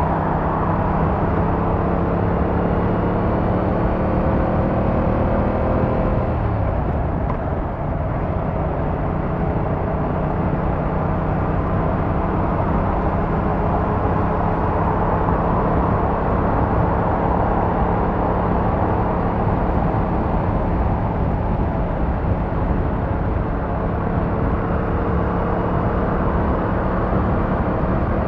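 Yamaha MT-07's 689cc twin-cylinder engine and exhaust running under way, with steady wind and road rush. The revs climb slowly, dip sharply about six seconds in, then climb slowly again.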